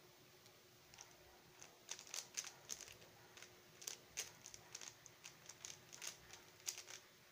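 A Xin Lexin stickerless 3x3 speed cube being turned quickly during a solve: a fast, irregular run of light plastic clicks, starting about a second and a half in.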